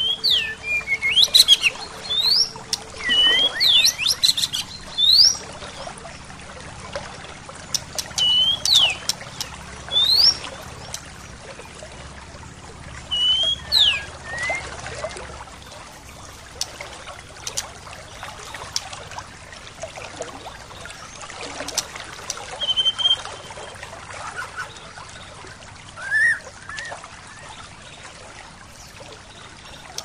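Birds chirping in short calls that sweep up or down in pitch, many in quick succession at first and fewer in the second half, over a steady rush of flowing stream water.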